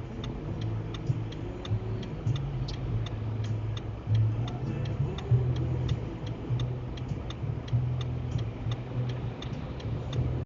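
Car turn-signal indicator ticking steadily, about three clicks a second, over the low hum of the engine and road inside a moving vehicle's cabin.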